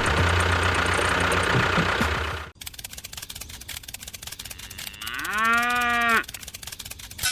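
A steady, dense mechanical-sounding noise with a low hum cuts off abruptly about two and a half seconds in. A few seconds later a cow moos once, a call of about a second that rises and then holds its pitch.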